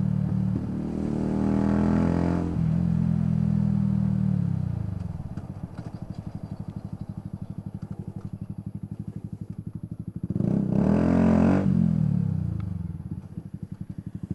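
Yamaha YZF-R125's single-cylinder four-stroke engine running under way, revving up about a second in and holding. It then drops to a low, fast-pulsing near-idle for several seconds before revving up and easing off again near the end.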